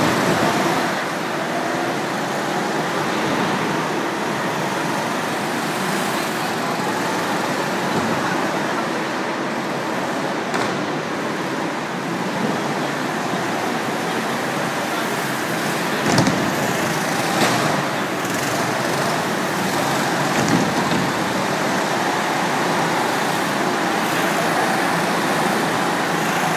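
Ice karts driving around an indoor ice rink track: a steady, echoing motor noise that rises and falls as the karts pass, with a few short sharp knocks in the middle.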